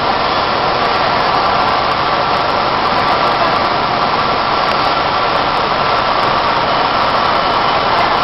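A 3 hp industrial vacuum cleaner running steadily, its motor and suction giving a constant, unbroken rush of noise.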